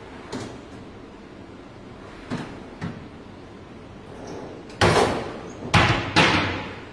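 Kitchen cabinet doors banging shut: a few light knocks, then three loud bangs near the end, the last two close together.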